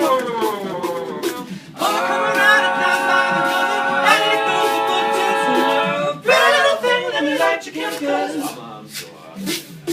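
An a cappella vocal group performing live. A lead voice imitates an electric guitar solo with sliding and long held notes over sung backing, while a beatboxer keeps time with sharp, regular clicks.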